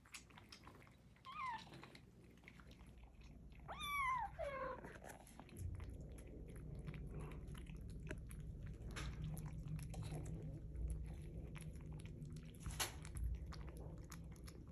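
Cat meowing twice, a short falling meow and then a longer one that slides down in pitch, among faint clicks from cats eating. A low steady hum comes in about halfway through.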